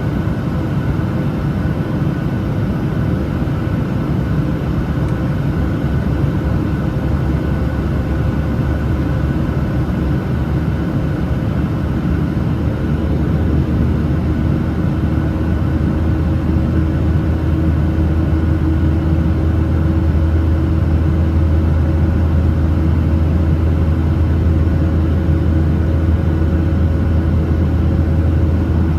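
Steady cabin noise inside a Boeing 737-900ER in flight: the drone of its CFM56-7B turbofans and airflow, with a low hum that strengthens a little about halfway through.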